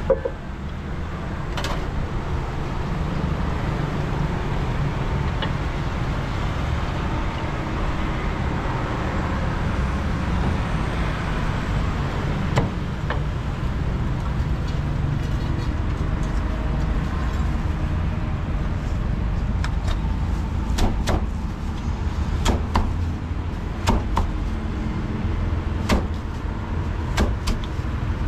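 Steady low rumble of passing street traffic, with sharp knocks of a cleaver striking a roast duck on a wooden chopping block, scattered at first and more frequent near the end.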